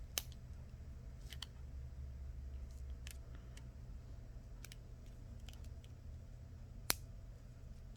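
Faint, scattered clicks and taps from handling the Apple Watch while a rubber band is wrapped around it to hold the freshly glued screen, with the sharpest clicks just after the start and about seven seconds in, over a low steady hum.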